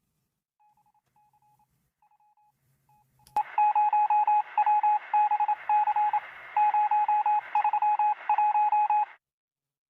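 Morse code beeps: a single steady tone keyed on and off in short dots and longer dashes. It is faint at first, then after a click about three seconds in it goes on loud over a radio-like hiss until it stops near the end.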